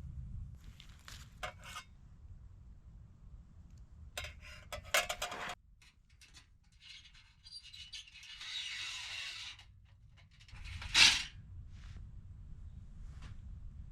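Thin stainless-steel panels of a folding wood stove clinking and scraping as they are handled and fitted together. There are a few light clicks, then a clattering run a few seconds in, a scraping rub in the middle, and one louder knock near the end.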